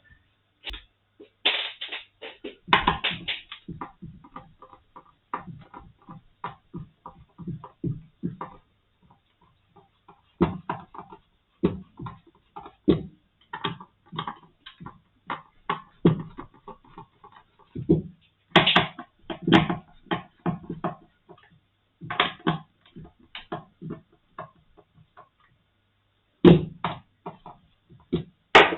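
A screwdriver undoing small screws in the moulded plastic case of a handheld sound level meter: irregular clicks, scrapes and taps of the tool and the case being handled, with a few louder knocks in short clusters.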